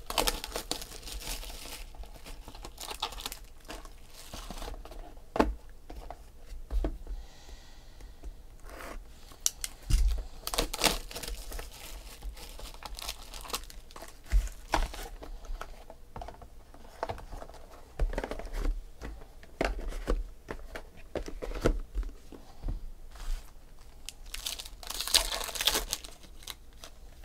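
Foil wrappers of 2007 Upper Deck Ultimate Collection baseball card packs crinkling and tearing as they are opened by hand, in irregular rustling bursts with a few sharp knocks.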